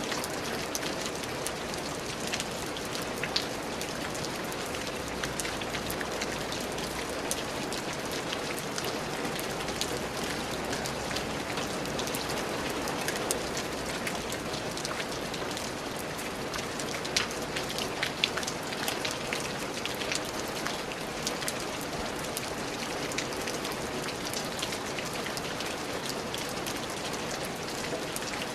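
Steady rain falling on a surface, with many individual drops ticking sharply through an even hiss.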